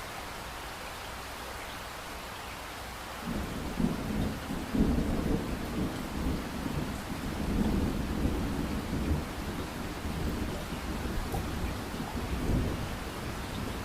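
Steady rain with thunder: a low rumble of thunder breaks in about three seconds in and keeps rolling in swells over the rain.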